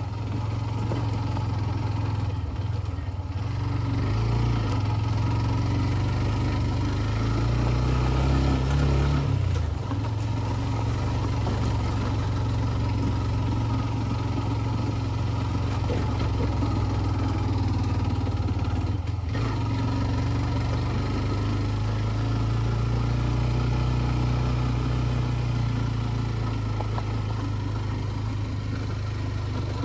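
TVS Ntorq 125 scooter's single-cylinder engine running steadily while riding, with a short rise in revs about eight seconds in that falls back a second later.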